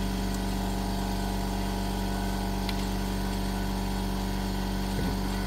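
Steady motor hum with an unchanging drone, and a faint click about two and a half seconds in.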